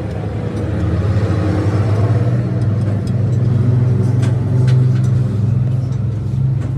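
An engine running steadily with a deep hum, growing a little louder about a second in, with a few light clicks around the middle.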